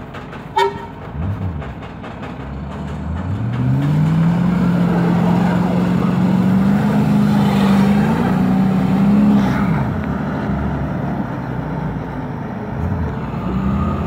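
A car engine, the Audi A8's, revs up about three seconds in and is held at high revs for about six seconds while its wheels spin on snow, straining to tow a truck on a strap. It drops back around ten seconds in to a lower running sound. A brief sharp sound comes just after the start.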